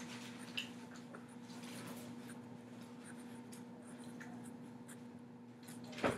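Felt-tip marker (Sharpie fine point) writing on paper: faint, scratchy strokes as letters are drawn, over a steady low hum. A brief louder sound comes right at the end.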